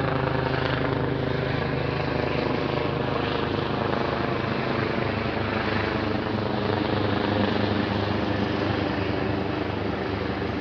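Helicopter engine and rotor running steadily in flight.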